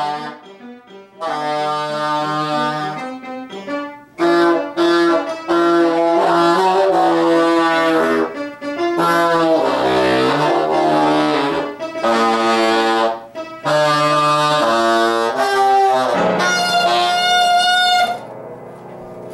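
Saxophone played in a string of short phrases of separate notes with brief gaps between them, ending in one long held note that stops a couple of seconds before the end, leaving a much softer steady sound.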